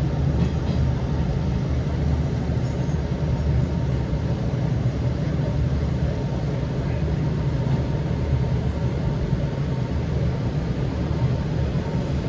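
Steady low rumble of a Hanshin Railway electric train running along the line, heard from inside the carriage.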